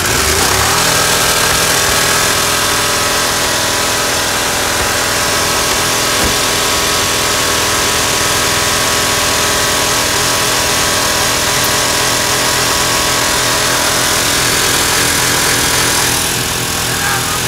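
Ford F-150 engine running flat out at high revs with crushed limestone poured into its oil, being deliberately run to destruction. It comes up to speed right at the start and holds a steady, loud note, easing off slightly near the end.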